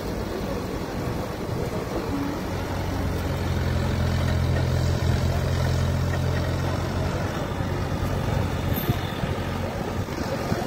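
Diesel engine of an ACE F160 pick-and-carry crane running, with a heavier, louder drone building from about two seconds in as it hoists a suspended elephant. The drone eases off again near the end.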